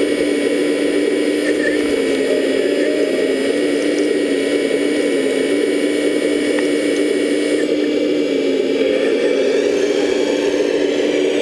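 Electric drive motors and gearing of 1/14-scale RC construction models running, giving a steady mechanical hum and whine. A higher whine rises in pitch about nine seconds in.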